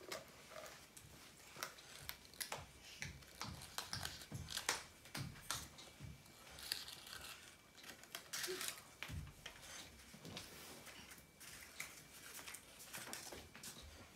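Faint rustling and crinkling of paper cupcake liners being pulled apart and handled, with scattered light clicks and a few soft knocks.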